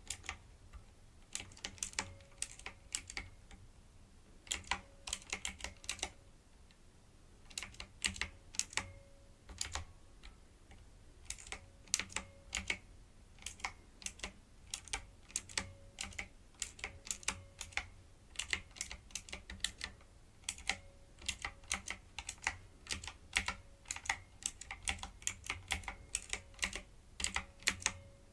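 Typing on a typewriter-style keyboard: quick runs of sharp key clicks in bursts, with short pauses between them.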